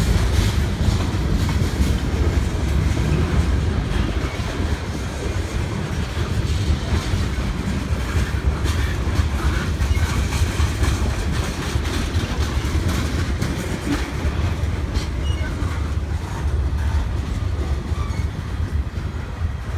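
Freight train cars rolling past: boxcars, tank cars and covered hoppers. A steady low rumble with irregular clicks of the wheels over the rail joints.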